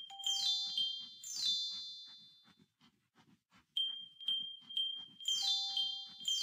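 Electronic feedback tones from BioExplorer's neurofeedback climbing game: a steady high beep and a lower tone under quick falling chime runs, sounding as the score rises. The tones fade out about two seconds in and start again at about four seconds.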